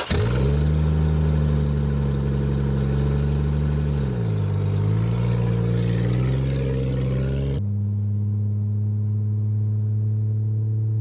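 Car engine running as the car drives off, its pitch steady, dipping briefly about four seconds in and then climbing again. About two-thirds of the way through it cuts abruptly to a duller, steady engine hum.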